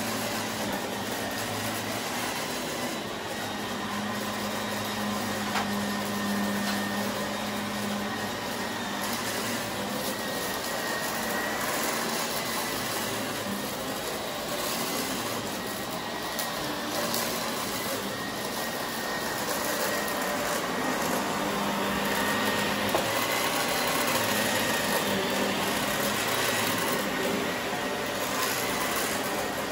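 Vacuum cleaner running steadily over carpet, with a few sharp ticks as bits of confetti are sucked up.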